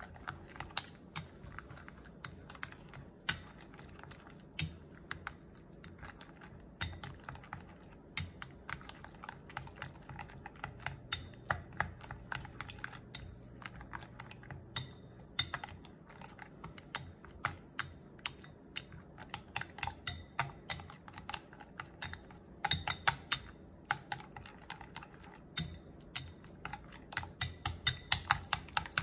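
Wooden chopsticks beating pancake batter in a glass bowl, clicking irregularly against the glass. Near the end the clicks come faster and louder as the stirring speeds up.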